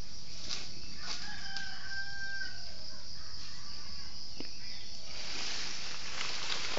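A rooster crowing once, starting about a second in: one long call, held and then falling away. Under it runs a steady high-pitched hiss.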